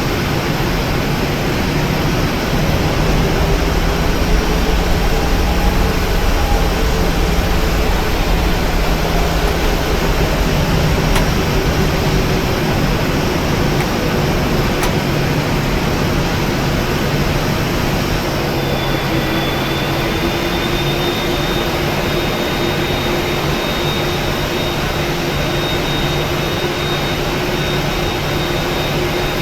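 Steady rushing noise inside the cabin of a Boeing 737-900 after landing, from the jet engines and the air-conditioning packs. A thin, steady high whine joins about two-thirds of the way in.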